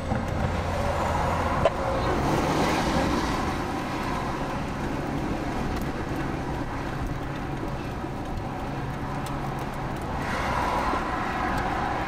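Road traffic on a wet road: a steady rush of tyres and engines, swelling as a pickup truck goes by about two seconds in and again as another pickup towing a trailer comes up near the end.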